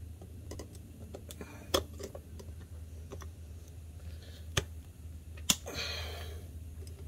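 Pliers gripping and levering a metal band clamp off a CV joint boot: scattered light metal clicks and scrapes, with three sharper clicks about a second and a half, four and a half and five and a half seconds in.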